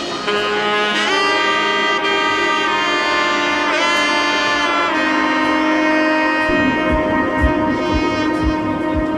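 Background music: a melody of long held notes with a bend in pitch near the middle, joined by a low pulsing beat about two-thirds of the way through.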